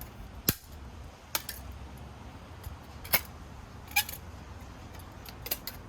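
Scattered sharp metallic clicks and taps, about six, of a screwdriver and loosened screws as the last screws holding the front panel of a Buffalo TeraStation network storage unit are taken out.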